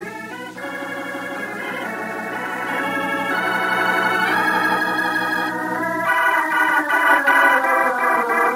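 Organ music playing slow held chords that change every second or so. About six seconds in, the bass drops away and the organ moves to brighter, quicker repeated notes.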